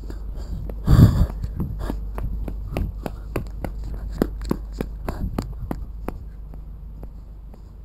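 Footsteps climbing the steps of a station footbridge and crossing it, about two to three steps a second, stopping near the end, with wind rumbling on the microphone and one loud brief rumble about a second in.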